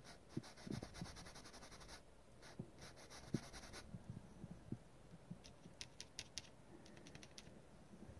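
Faint, fast scratching of a paintbrush's bristles worked back and forth on an oil canvas, in two quick runs in the first half, then a few separate short brush strokes, with some soft knocks.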